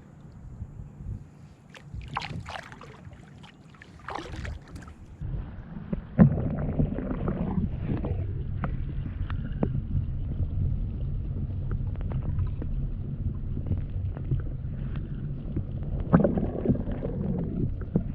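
Kayak paddle strokes splashing and dripping in the water, a couple of separate splashes and then steady paddling, with a steady low rumble of wind on the microphone from about six seconds in.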